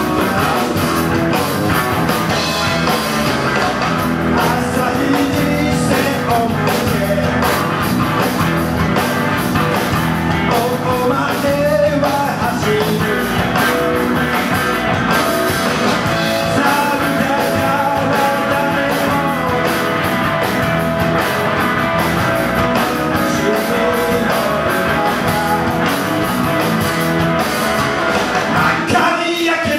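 Live rock band playing electric guitar, bass guitar and drum kit, with a man singing lead vocals.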